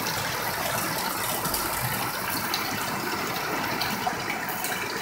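Heavy tropical rain falling steadily onto standing water and concrete.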